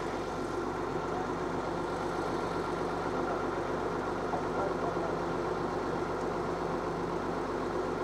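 Komatsu crawler bulldozer's diesel engine idling steadily.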